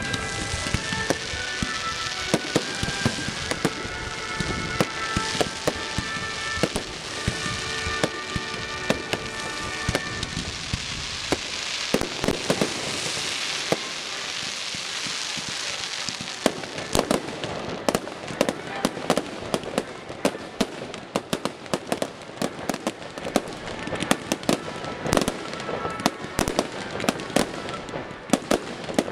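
Fireworks going off: crackling under steady music-like tones at first, then a dense hissing crackle around the middle. From about halfway through comes a rapid, uneven string of sharp bangs and pops.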